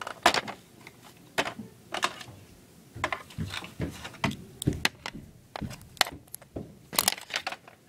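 Irregular plastic clicks and taps: a small plastic toy figure being handled and knocked against a plastic playset.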